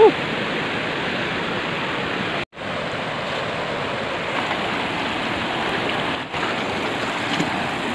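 Fast-flowing mountain river rushing steadily over rocks and rapids. The sound cuts out for an instant about two and a half seconds in.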